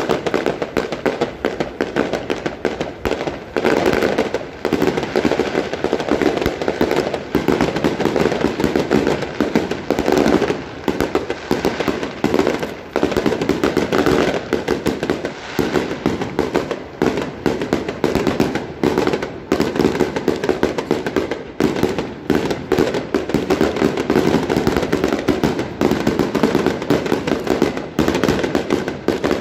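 Daytime aerial fireworks set off in a loud, unbroken barrage of rapid bangs and crackles, the explosions overlapping so densely that there is hardly a gap between them.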